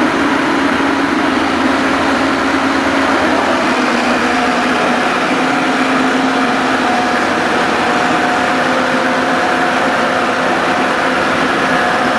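Rotary drilling rig running steadily with a loud, continuous engine hum; a second, higher tone joins about four seconds in.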